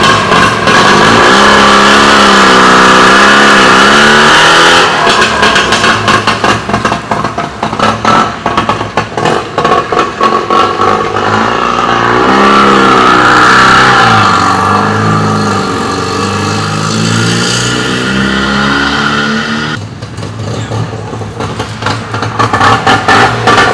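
Trabant's two-cylinder two-stroke engine running under way, its pitch rising and falling repeatedly as it revs up and eases off through the gears, with a drop in level near the end.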